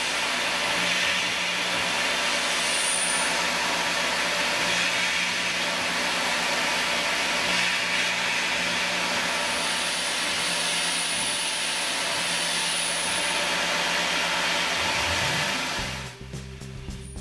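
Tormach PCNC 770 CNC mill finishing aluminium with a 3/16 inch ball end mill on a parallel surfacing pass: a steady hiss of spindle, cutting and coolant spray, with a thin high whine that comes and goes. About a second before the end the machine sound drops away and background music takes over.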